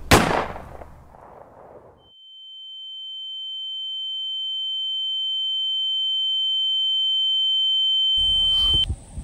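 A single loud bang, then a steady high-pitched pure tone that slowly grows louder for about six seconds and cuts off suddenly: a film's ear-ringing sound effect. Just before the tone stops, a car engine's low rumble comes in.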